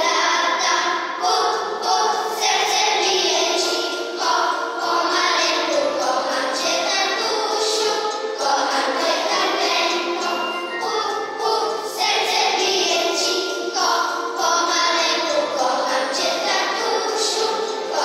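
A children's choir singing a song over recorded backing music, with jingling bell-like percussion in the accompaniment.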